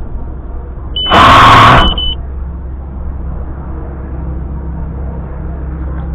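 A steady low hum. About a second in it is cut by a loud burst of noise lasting just under a second, carrying a steady high beep from the FPV quadcopter's buzzer that lingers briefly after the burst.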